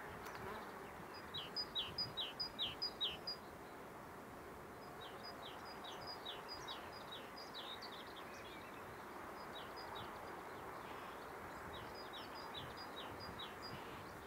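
Steady hum of a honeybee colony buzzing over an open hive. A songbird sings over it in several short phrases of quick, repeated high notes; the phrase about one to three seconds in is the loudest.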